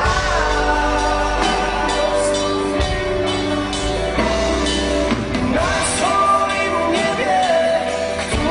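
Live rock band playing, with a male lead vocalist singing long held notes that slide between pitches over electric guitars and drums.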